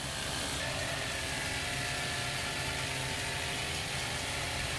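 Pressure washer running: a steady motor and pump hum under the hiss of the water jet rinsing foam off a van's bodywork.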